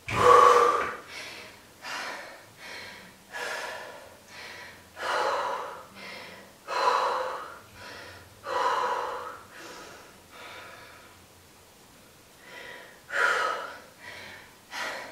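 A woman breathing hard, out of breath from a set of weighted lunges: a run of loud, gasping breaths about a second apart, strongest at the start, easing briefly about two-thirds through before picking up again.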